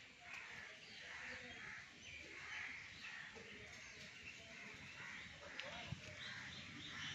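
Faint outdoor ambience with distant birds calling now and then.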